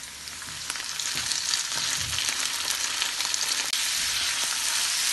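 Raw chicken pieces sizzling as they drop into a pan of onions frying in oil, the sizzle swelling over about the first second and then holding steady, with the spatula clicking and scraping against the pan as it stirs.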